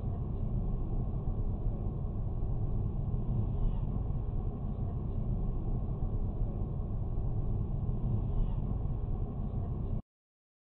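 Steady low road and engine rumble inside a moving car, picked up by a dashcam microphone. It cuts off suddenly near the end.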